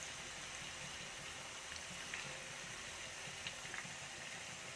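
Masala-coated fish pieces sizzling in hot coconut oil in a kadai: a steady hiss with scattered small crackles.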